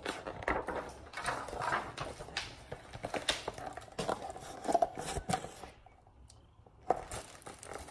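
A large picture book's paper pages being turned and the book handled: rustling and soft knocks, quieting briefly before a sharp tap about seven seconds in.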